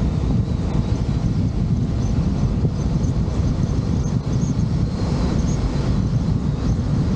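Steady wind rush buffeting the microphone over the low rumble of a vehicle on the move, even throughout.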